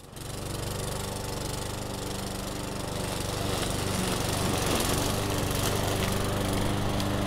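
Walk-behind lawn mower running steadily as it is pushed over a lawn to mow up fallen leaves, growing a little louder about three seconds in.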